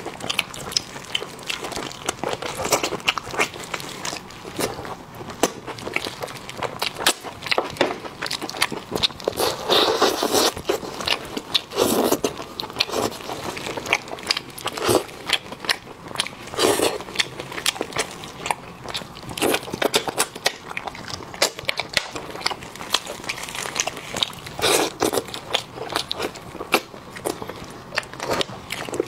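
Close-miked eating of saucy braised meat off the bone: rapid wet mouth clicks, smacking and chewing, broken by a few louder, longer biting and sucking noises.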